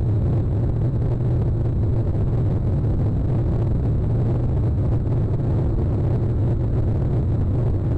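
A small motorboat's engine running steadily as it moves across the water, heard as a constant low rumble.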